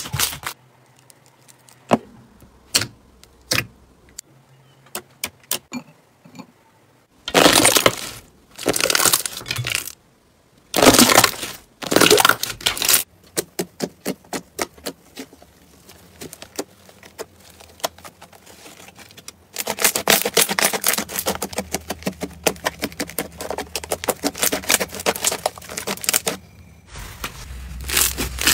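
Hands squeezing, pressing and kneading slime, one kind after another: sparse clicks and small pops, a few louder bursts, then long runs of dense fine crackling. From about twenty seconds in the crackling is steadier and denser, as a crunchy slime is kneaded.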